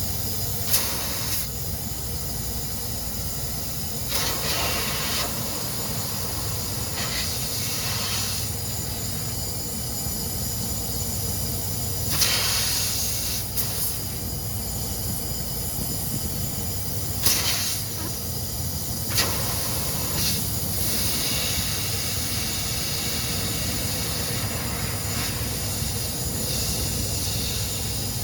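Compressed nitrogen hissing steadily as it is blown through air-conditioning lines to flush out contamination, with several louder surges of hiss, each about a second long, and a few sharp clicks.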